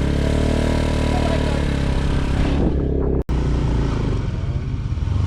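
Motorbike engine running on the move, with a steady rush of wind and road noise. Its pitch eases down over the first three seconds. After a sudden break just past three seconds, the engine runs on.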